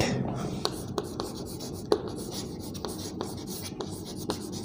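Chalk writing on a chalkboard: scraping strokes with irregular sharp taps as the chalk strikes the board.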